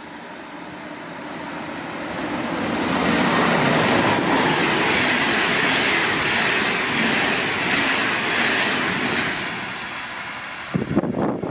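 A train passing at speed. Its rolling rush builds over about three seconds, holds loud and steady for about six, then fades. Near the end come sudden irregular gusts of wind buffeting the microphone.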